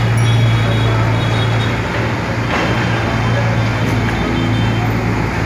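Street traffic noise with a steady low engine hum from nearby motor vehicles.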